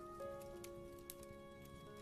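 Soft piano playing slow, held notes over a faint patter of rain, with scattered sharp crackles from a fire.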